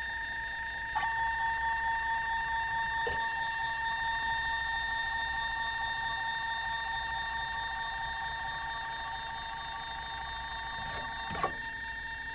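Sherline CNC mill's motors giving a steady high electrical whine in two tones. The lower tone comes in with a click about a second in, and there is another click near the end.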